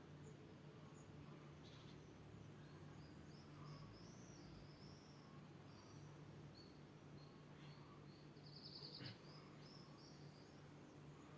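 Faint birdsong: scattered short high chirps and a brief trill about nine seconds in, over a low steady hum and hiss.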